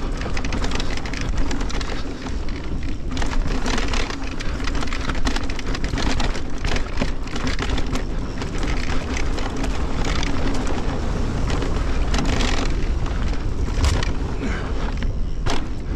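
2023 Fezzari Timp Peak electric mountain bike descending a dirt trail at speed. Its tyres crunch over loose dirt and small rocks, and the bike knocks and rattles over bumps, with a constant rumble of wind on the camera microphone.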